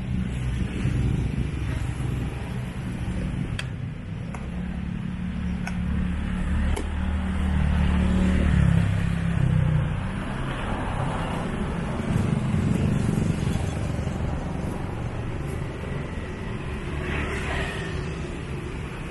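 Low rumble of street traffic passing, loudest about halfway through, with a few light clicks from a spoon and glass jars.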